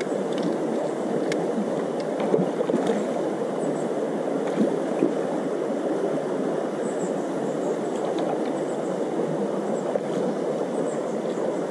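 Steady rush of a shallow river flowing over stones, with a few faint clicks.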